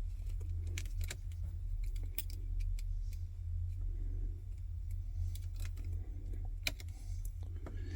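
Scattered metallic clicks and clinks of a hand-held wire stripper and copper electrical wire being handled and worked, over a steady low hum.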